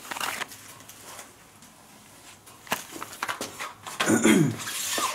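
Cardboard box and fireworks packaging being handled: scattered clicks and rustling as packs are picked up and set down. About four seconds in comes a brief vocal sound that falls in pitch, over more rustling.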